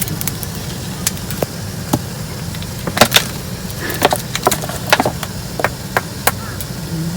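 Irregular sharp knocks and clicks, with a louder pair about three seconds in, over a steady low rumble.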